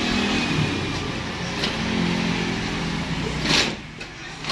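Industrial shoe sewing machine running steadily as it stitches fabric, its motor and needle mechanism humming. Near the end it stops with a short sharp noise.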